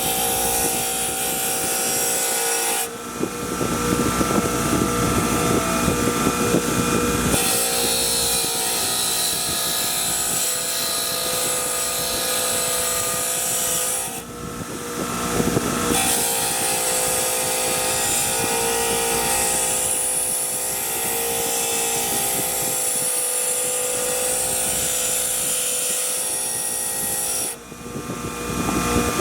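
Electric power tool running steadily, with stretches of rougher, harsher contact noise and a few short breaks.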